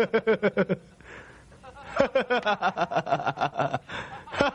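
A man laughing derisively in three bouts of rapid "ha-ha-ha" pulses, about eight to ten a second, scoffing at a story he calls absurd and crazy.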